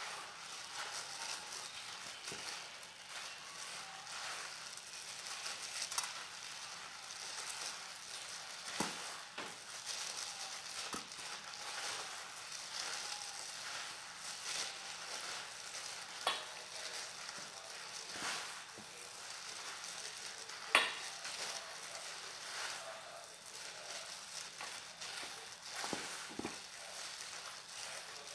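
A plastic-gloved hand rubbing butter into flour and sugar in a stainless steel bowl: a steady gritty rustle with a few sharp knocks against the bowl, as the butter is worked through the dry ingredients.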